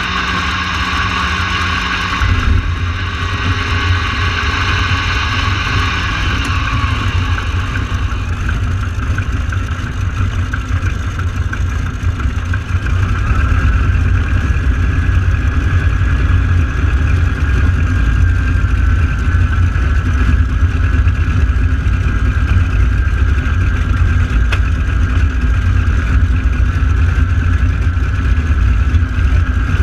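Radial piston engines of AeroShell team T-6 Texan aircraft running on the ground shortly after start-up, a steady low rumble. The rumble grows louder about 13 seconds in.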